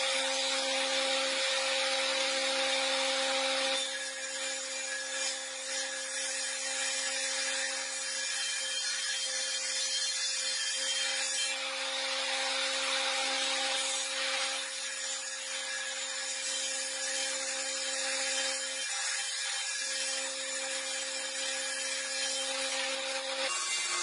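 Stationary woodworking machine's motor running with a steady hum while its cutter machines a wooden board, a loud hissing cut for the first few seconds and another from about twelve seconds in. The hum stops shortly before the end.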